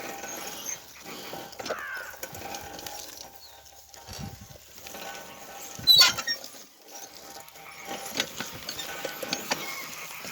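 Pedal car being pedalled: its chain and wheels rattle, click and scrape irregularly, with one sharp clank about six seconds in. The chain rubs now and then after the repair.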